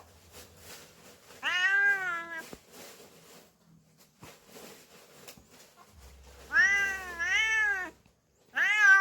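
Domestic cat meowing: a drawn-out meow about a second and a half in, two meows back to back a little after six seconds, and another starting just before the end.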